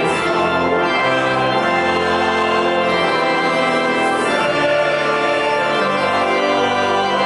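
Organ playing hymn music in full held chords that change about once a second.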